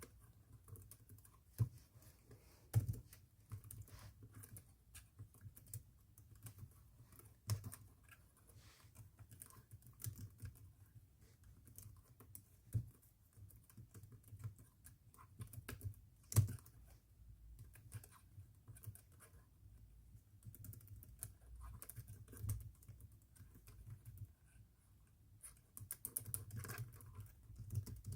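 Typing on a Logitech wireless keyboard: an irregular stream of key clicks with a few louder keystrokes, growing busier near the end.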